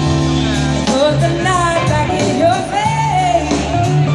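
Live blues-rock band playing through a concert PA: a steady bass and held chords under a lead line that glides and bends in pitch through the middle.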